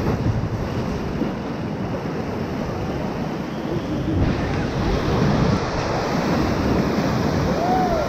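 Whitewater rapids of the Ocoee River rushing and churning around a river raft, a steady dense wash of water noise that grows a little louder about halfway through.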